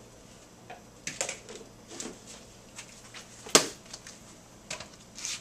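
Light clicks and knocks of a plastic tub and its lid being handled and set about, with one sharper knock about three and a half seconds in.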